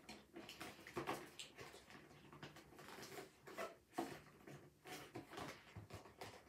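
Faint, irregular rustling and clicking of a toy's packaging being handled and pulled at while someone struggles to get the toy out.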